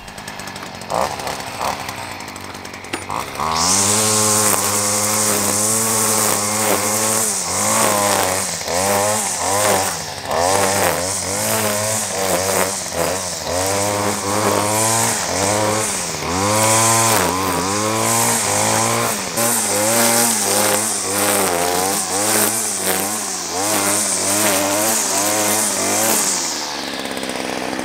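Stihl curved-shaft string trimmer's small petrol engine cutting grass. The engine speed rises and falls about once a second as the throttle is worked, with a high hiss from the line. It is quieter for the first few seconds, gets loud about three and a half seconds in, and stops shortly before the end.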